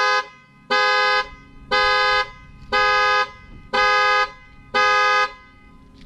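2010 Chevrolet Impala's two-note horn blasting in its alarm pattern: six half-second honks, one a second, evenly spaced. The alarm is going off by itself with nobody pressing the panic button, which the owner suspects is a faulty sensor.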